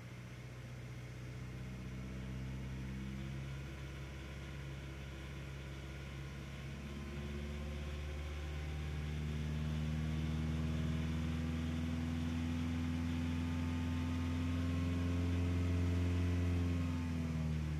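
VAZ-21124 1.6 litre 16-valve engine running, revs climbing slowly and then held, dropping back shortly before the end. The owner reports a knock that appears around 2000 rpm when running without load.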